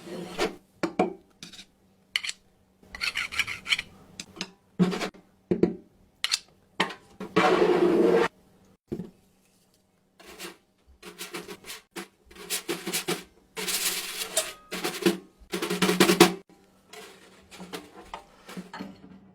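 Foley props rubbed and scraped against each other in a long run of short, irregular strokes, the longest lasting about a second, the loudest coming in a dense cluster toward the end, over a faint steady hum.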